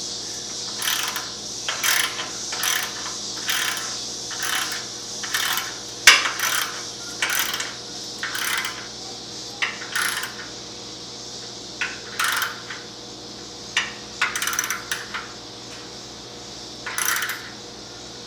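Hand ratchet clicking in short bursts of back-strokes as exhaust pipe clamps are tightened down. The bursts come about one a second at first and thin out later, with one sharper metal click about six seconds in.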